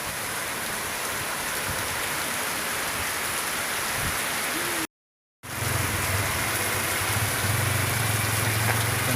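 Steady rain falling. It cuts out for half a second about five seconds in, and when it comes back a steady low hum sits under the rain.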